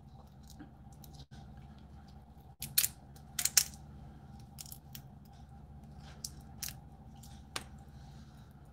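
Cooked blue crab shell cracking and snapping as it is picked apart by hand, a scattering of short sharp cracks, several close together about three seconds in.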